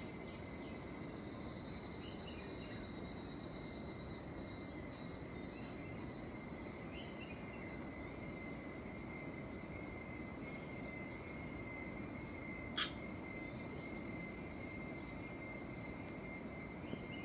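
Chorus of insects trilling steadily at several high pitches at once, with a single brief sharp sound about 13 seconds in.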